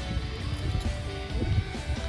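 Music with guitar playing.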